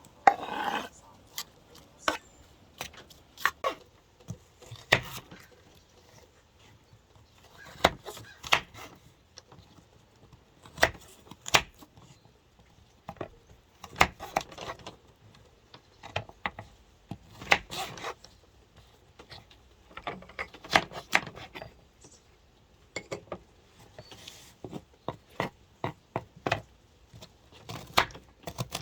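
Irregular clicks and knocks of hands-on kitchen prep: a knife tapping and cutting on a wooden cutting board, with utensils and dishes being handled, in short clusters a second or two apart.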